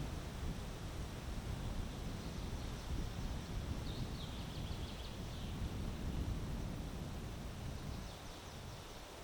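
Wind gusting across the microphone, a low rumble that eases near the end, with leaves rustling. A small bird calls faintly twice, a short run of high notes about four seconds in and again near the end.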